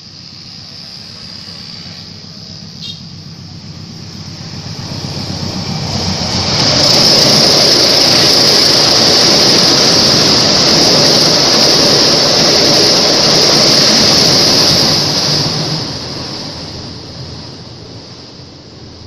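Train passing at speed on the rails: the sound swells over a few seconds, stays loud for about nine seconds as it goes by, then fades away. A high-pitched squeal from the wheels on the rails is strongest while it passes.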